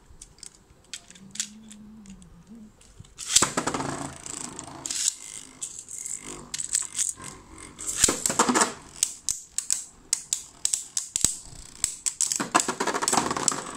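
Two Beyblade spinning tops launched into a clear plastic stadium about three seconds in, then clicking and rattling as they spin and clash against each other and the stadium wall, with bursts of clattering at each collision.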